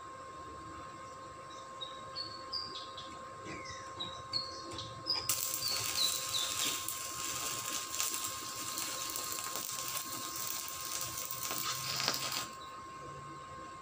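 Stick (arc) welder welding the steel gate frame. The arc strikes about five seconds in and gives a dense crackling hiss for about seven seconds, then cuts off suddenly.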